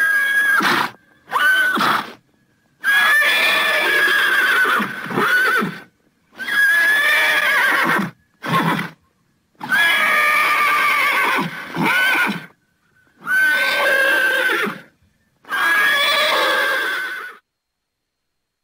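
Horses whinnying, about eight neighs in a row: some long and wavering in pitch, some short, with brief silent pauses between them. The calls stop about a second before the end.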